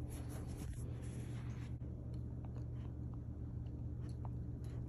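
A Goldendoodle gnawing a rawhide-free chicken chew stick: scattered small clicks and crunches over a steady low hum.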